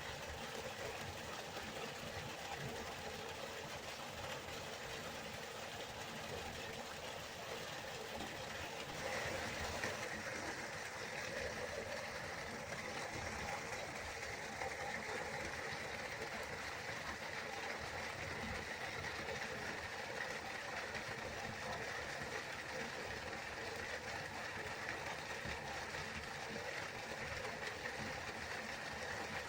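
River water flowing in a steady rushing noise, its hiss turning slightly brighter about nine seconds in.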